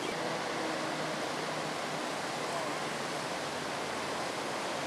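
Steady rushing and splashing of floodwater churned up by motorcycles and cars driving through a flooded street.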